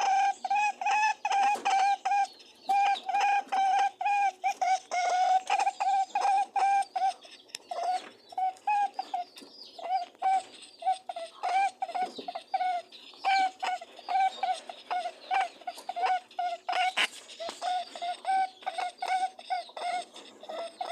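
Rabbit honking while mating: a quick, steady run of short pitched honks, a few each second.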